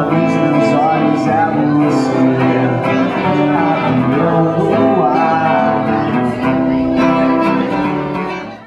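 Two acoustic guitars playing with a man singing over them, fading out near the end.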